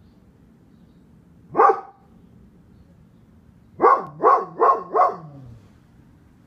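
Golden retriever giving alert barks: one bark, then a quick run of four more about two seconds later, the last trailing off lower.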